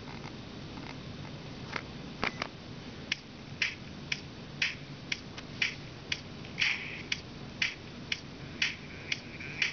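Music leaking from a pair of cheap counterfeit Beats Solo HD headphones played at full volume, picked up by the microphone as a thin, tinny sound. Mostly a crisp clicking beat comes through, about two hits a second, with no bass. The beat is sparse for the first couple of seconds, then steady.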